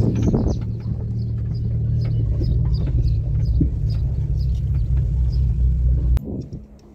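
Car driving slowly on a dirt road, heard from inside the cabin: a steady low rumble of tyres and engine with scattered light ticks, cutting off suddenly about six seconds in.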